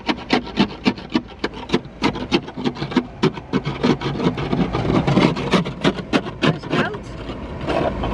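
Ice scraper scraping frost off a car windscreen, heard from inside the car: quick, rasping strokes, about four a second, over a low steady hum.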